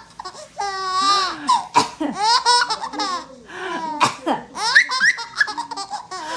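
A baby laughing in repeated bursts of high-pitched, wavering giggles and squeals, with lower-pitched adult laughter mixed in.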